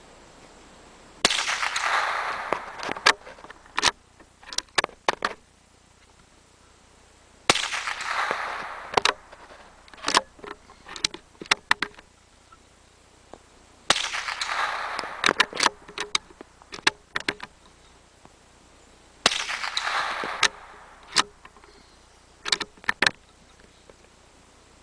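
Four shots from a scoped CZ 452 American bolt-action .22 LR rifle, about six seconds apart, each a sharp crack with a short fading ring. Clusters of metallic clicks follow each shot as the bolt is worked to eject the case and chamber the next round.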